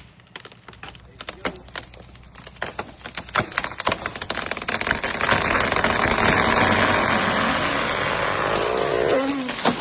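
A felled tree cracking and snapping at the hinge, the cracks coming faster and faster, then a long rush of branches and foliage sweeping through the air as it falls, over a chainsaw idling low.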